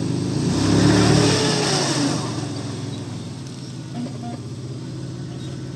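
Off-road vehicle's engine revved hard, loudest about a second in, then easing back to a steady run, as the vehicle slides in the mud instead of climbing.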